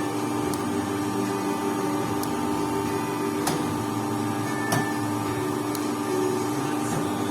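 A machine humming steadily, with a few faint sharp clicks scattered through it.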